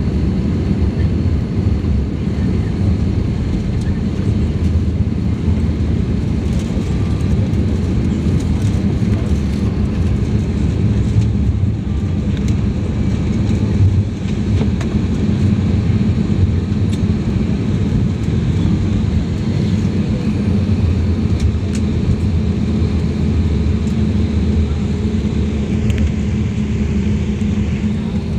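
Steady low rumble inside a jet airliner's cabin as it rolls out after landing and slows onto the taxiway: the wing-mounted turbofan engines running and the undercarriage rolling on the runway, heard from a window seat over the wing.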